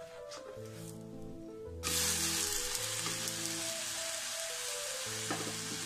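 Uthappam sizzling in oil on a hot pan. The sizzle starts suddenly about two seconds in, as the flipped side meets the pan, then holds steady over background music.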